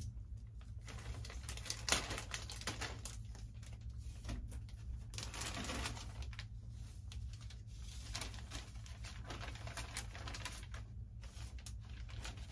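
Clear plastic bag crinkling and rustling, with cardboard scraping and knocking, as a foam wing panel is handled and pulled from its box. Irregular clicks and rustles sit over a steady low hum.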